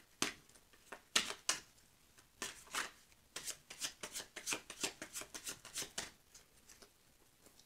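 A Rider-Waite tarot deck shuffled by hand: a quick, irregular run of soft card slaps and flicks that stops shortly before the end.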